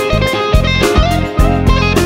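Background music: a guitar-led track over bass with a steady beat.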